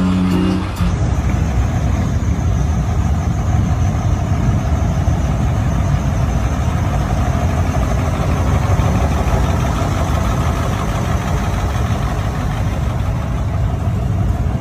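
Air-cooled twin-turbo Deutz diesel engine idling steadily with a deep rumble. A burst of music cuts off about a second in.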